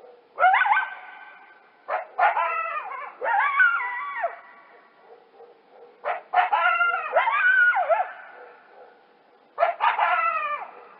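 Coyotes yipping and howling in about five bouts of high, wavering calls that slide up and down in pitch, with short pauses between bouts.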